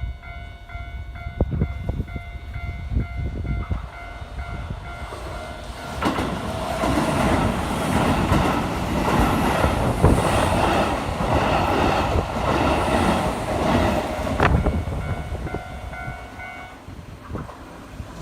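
Japanese level-crossing warning bell ringing in a steady repeating electronic clang. A Keihan electric train runs over the crossing from about six seconds in to about fifteen, with wheels clattering over the rail joints. The bell stops shortly after the train has passed.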